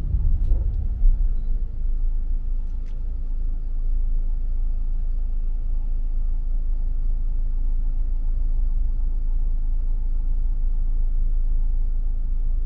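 Steady low rumble of a car driving on the road, with two faint ticks in the first three seconds.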